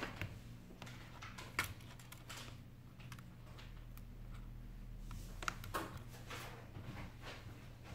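Scattered small clicks and taps of fingertips on the parts of an opened iPhone 8 Plus, handling the lifted display and the metal connector cover and cables inside, the sharpest click about one and a half seconds in, over a faint steady low hum.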